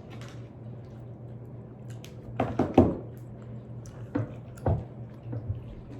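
Someone chewing a mouthful of mac and cheese close to the microphone: a few short mouth sounds, the loudest pair about two and a half to three seconds in, over a steady low hum.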